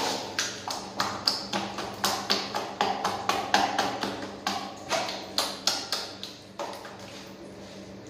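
Quick sharp taps, about three a second, as a hand works white cement powder in a rubber mixing pan on a tiled floor. The tapping stops near the end, leaving a faint steady hum.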